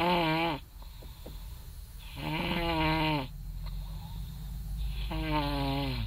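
A person snoring loudly in long, wavering, droning snores about every two and a half seconds. One snore ends just after the start, a full one comes about two seconds in, and another begins about five seconds in.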